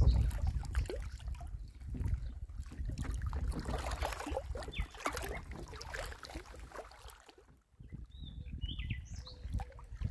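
Waterside ambience: wind rumbling on the microphone with light lapping and crackle of water at the rocks, fading out about seven seconds in. A few short, falling bird chirps follow near the end.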